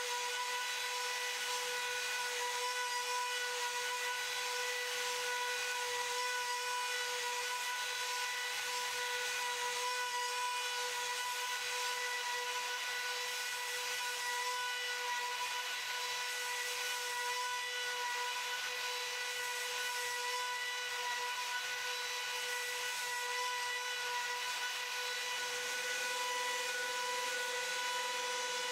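Makita trim router on a CNC machine running at a steady high-pitched whine as its bit carves a 14 mm deep cut through MDF board, with a constant hiss of cutting under the tone.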